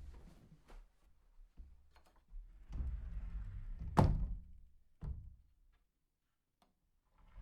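Sliding closet door rolling along its track: a rumble dies away at the start, then a second run of rumbling about two and a half seconds in ends in a sharp knock as the door hits the end of its travel, followed by a smaller knock about a second later.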